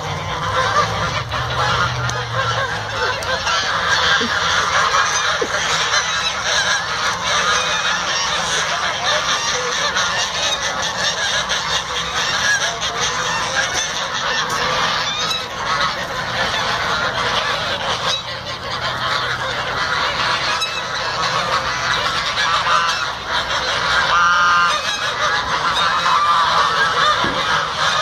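A flock of domestic geese honking without a break, many calls overlapping, as the agitated birds squabble among themselves.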